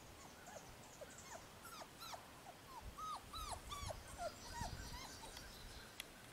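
English Shepherd puppy whining: a run of short, high cries, each falling in pitch, coming fastest and loudest about three to four seconds in.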